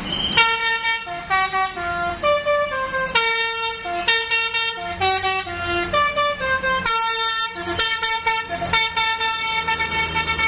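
Bus telolet horn playing a tune: short runs of stepped notes, mostly falling in pitch, in phrases broken by brief pauses, ending in a long held chord.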